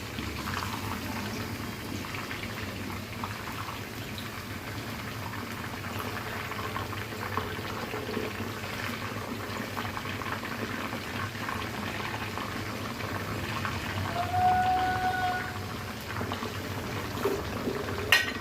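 Whole chickens deep-frying in hot oil in a karahi, the oil sizzling and crackling steadily. A brief steady tone sounds about three-quarters of the way through, and a sharp click comes just before the end.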